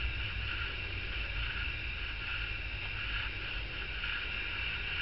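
Steady background noise, a low rumble with a faint hiss above it, with no distinct clicks or handling sounds.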